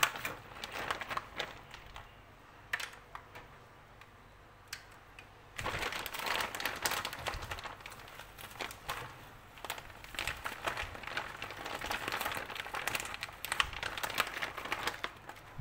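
Crinkling plastic and an aluminium foil tray as shredded mozzarella is sprinkled by hand, a busy run of small crackles and clicks. It goes quieter for a few seconds, then picks up again about five and a half seconds in.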